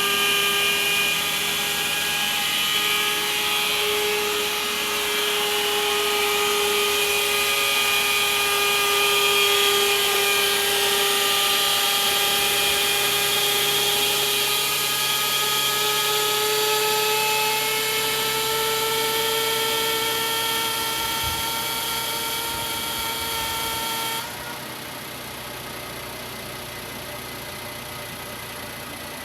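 Abnormal whining noise from a Toyota Raize: a steady pitched whine with several overtones that drifts slightly up and down in pitch, over a steady hiss. About 24 seconds in the sound drops noticeably and the hiss thins out.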